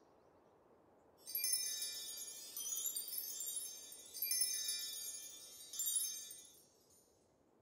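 Cartoon magic-wand sparkle effect: high, shimmering chimes in about four swells as the wand draws a glowing letter, starting about a second in and fading out near the end.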